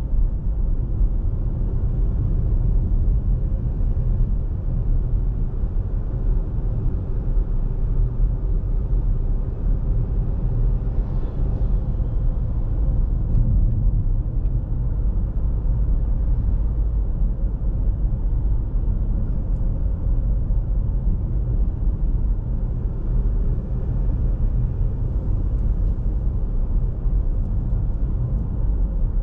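Car driving along, a steady low rumble of road and engine noise heard from inside the car.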